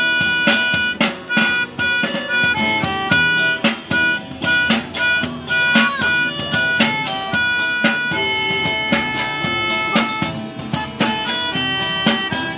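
Music: a melody of steady held notes over a quick drum beat, with guitar.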